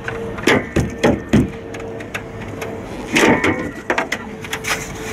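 Clunks and knocks of a car's hood and latch being worked, with a cluster in the first second and a half and another about three seconds in, over a steady faint hum.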